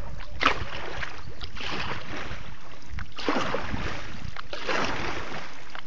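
A boat moving through floodwater: water swishing in surges about every second and a half, over a steady low rumble.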